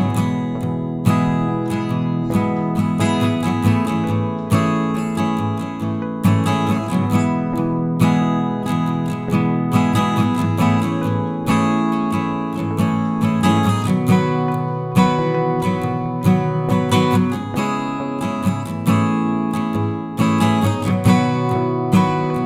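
Background music: acoustic guitar being strummed and plucked in a steady, regular rhythm.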